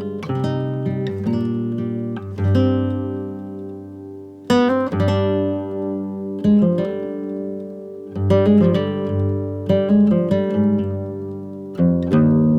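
Background music: acoustic guitar played with plucked and strummed chords.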